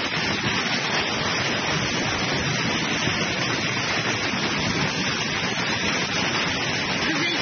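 Fast-flowing floodwater rushing in a flash flood, mixed with heavy rain: a steady, even rush of noise with no breaks.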